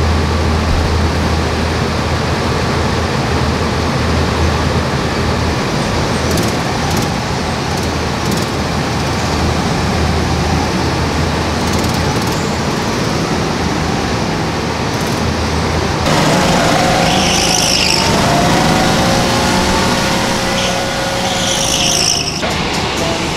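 Go-kart engines idling together in a row with a steady low drone. About two-thirds of the way through, the sound changes to karts running and accelerating, with the engine pitch rising.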